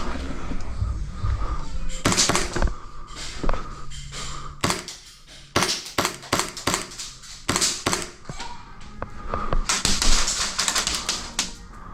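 Airsoft guns firing: irregular sharp cracks and clicks, with quick runs of shots about two seconds in and again near the end.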